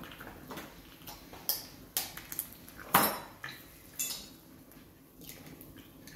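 Kitchen pans and utensils clattering: a handful of sharp knocks and clinks, the loudest about three seconds in, as eggs are being put into a hot frying pan.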